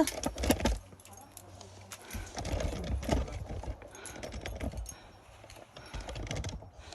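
Irregular knocks, taps and clicks from a climber's hands, shoes and gear on the rock, with stretches of low rumble.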